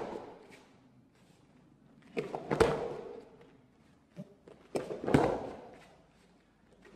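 Quick front rolling breakfalls on foam jigsaw mats: each roll is a short cluster of thuds and slaps as arm, shoulder, back and feet meet the mat. Two rolls land about two seconds in and about five seconds in, each dying away over about a second.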